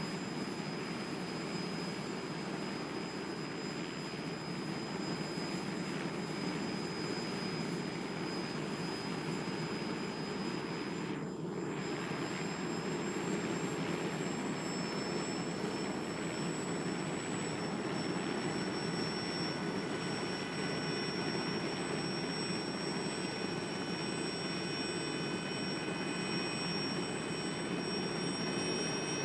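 Jet engine running steadily: a constant rushing noise with thin high whining tones that edge up in pitch and thicken over the second half. The high end briefly drops out about eleven seconds in.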